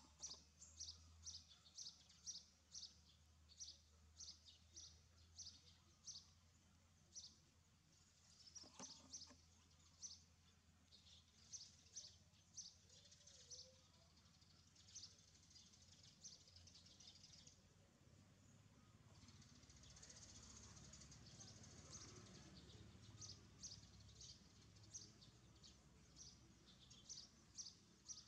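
Faint, high bird chirps repeated about two or three times a second, with a short break past the middle.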